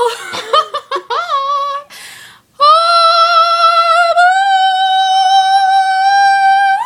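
A woman's high voice singing without words: a quick warbling run of notes, a short breath, then one long sustained high note that steps up slightly partway through and is held.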